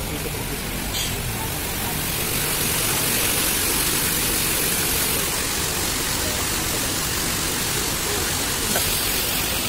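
Small fountain's foaming bubbler jets splashing steadily into their round basin, a constant rush of falling water that grows a little louder about two seconds in.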